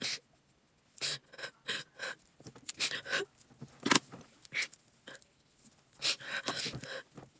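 A woman crying and sobbing, with gasping breaths that come in irregular bursts. The strongest gasp comes about four seconds in.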